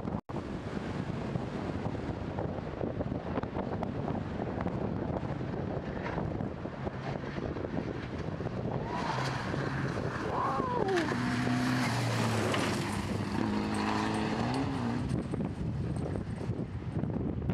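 Mitsubishi Lancer Evolution X rally car's turbocharged four-cylinder engine at full speed on a wet gravel stage. The engine note rises and falls with gear changes and is loudest as the car passes about two thirds of the way through.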